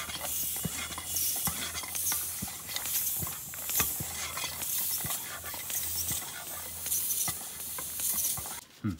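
Bicycle pump being worked in steady strokes, air hissing about once a second with small clicks, inflating a flat bicycle tyre. The strokes stop just before the end.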